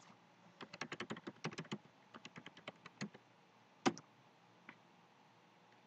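Typing on a computer keyboard: a quick run of keystrokes, a short pause, a second run, then a single louder click just before four seconds in.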